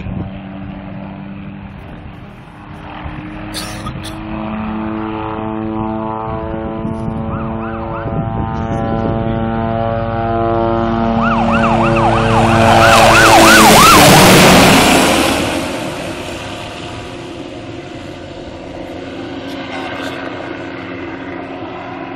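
MD 500E turbine helicopter flying past low: its steady rotor and engine sound builds as it approaches and is loudest a little past the middle. The pitch drops as it passes, then the sound fades as it flies away.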